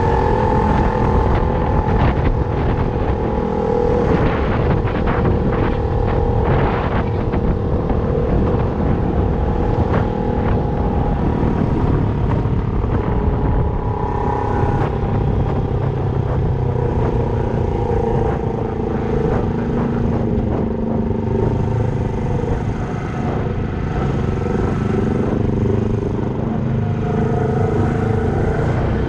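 Motorcycle engine running steadily while riding, its pitch rising and falling a little with speed, over a heavy low rumble.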